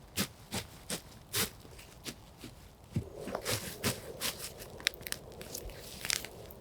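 Irregular crunching and crackling of dry twigs, wood and forest litter while a campfire is being put out: single sharp cracks for the first few seconds, then a denser run of crunches from about three seconds in.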